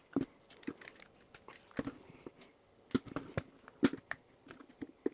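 Irregular small plastic clicks and snaps as the two halves of a 12V cordless drill's plastic casing are prised apart by hand.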